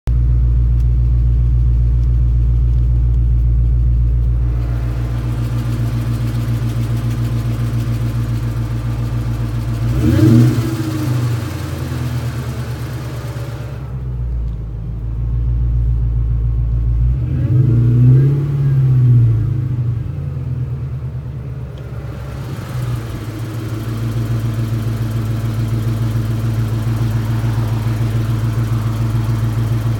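1999 Mustang GT's built 4.6-litre four-valve V8, with long-tube headers and an X-pipe, idling with a rattle and clicking that the owner wonders could be the new twin-disc clutch or something worse. The engine is revved briefly twice, about a third of the way in and again just past the middle.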